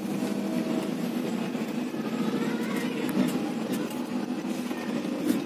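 Truck engine running and cab noise from inside the cab while driving over a rough gravel road, with scattered rattles and knocks from the cab.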